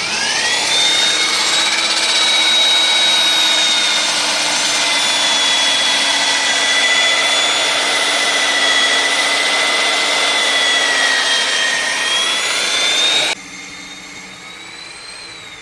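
Electric diamond core drill with a 6-inch bit spinning up and cutting into a concrete wall: a high motor whine over a steady grinding. About 13 seconds in the sound drops off suddenly, and the whine then winds down near the end.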